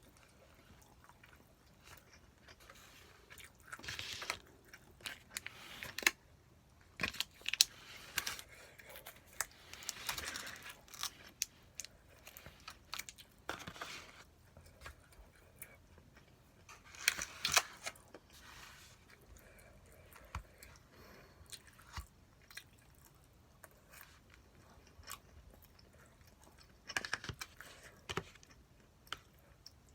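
Close-up eating sounds of a person chewing jeyuk-bokkeum (spicy stir-fried pork): bouts of chewing with some crunch, and scattered sharp clicks, in several louder spells between quiet stretches.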